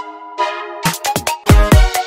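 Electronic background music: held synth chords, then a run of drum hits with two heavy kick drums near the end.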